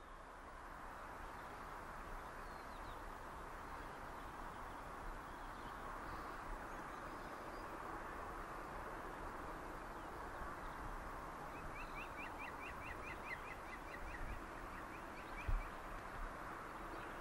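Steady outdoor background noise. About twelve seconds in, a small bird sings a rapid run of repeated high chirps, and a short low thump comes near the end.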